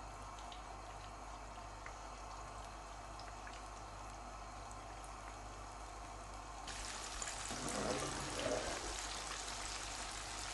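Battered chicken pakoras frying in hot oil, a steady sizzling hiss that grows louder about seven seconds in.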